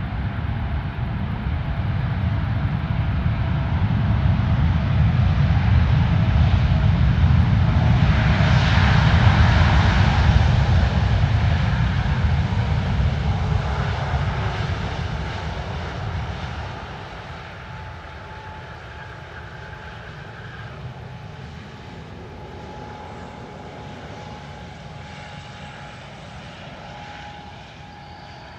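Boeing 787-8 jet engines during the landing rollout: a loud rush of engine noise swells to a peak about ten seconds in and falls away sharply around sixteen seconds. A quieter steady engine whine with a faint thin tone follows as the airliner rolls slowly along the runway.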